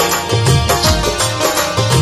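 Instrumental break in a Rajasthani folk bhajan: a Roland XPS-10 keyboard plays a melody of held notes over a steady drum beat, about two bass-drum hits a second.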